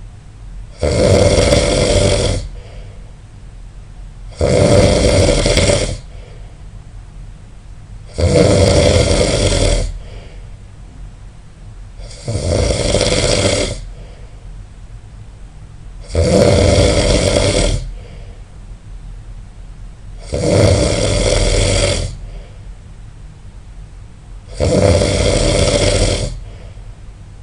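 A person snoring loudly and regularly, one snore about every four seconds, each lasting about a second and a half.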